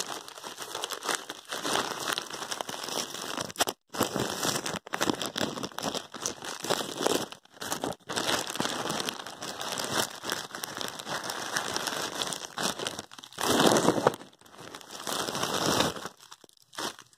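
Plastic courier bag and plastic packaging crinkling and crackling as the parcel is opened and handled, with a louder burst of crinkling about two-thirds of the way through.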